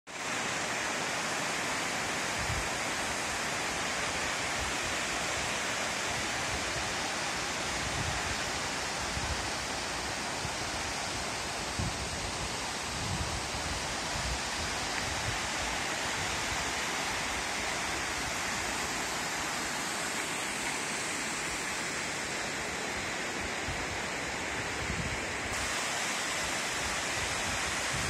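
A tall waterfall spilling in many thin cascades down a mossy rock face: a steady, even rush of falling water. A few soft low thumps come through it.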